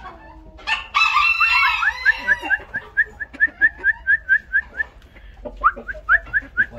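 Chickens calling: a loud squawk about a second in, then a rapid run of short, rising chirps, about five a second, that stops briefly and starts again near the end.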